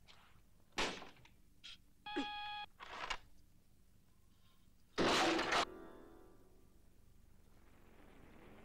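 A few knocks and a short pitched note, then, about five seconds in, a loud crash as a thrown portable organ hits, followed by a dying ringing tail.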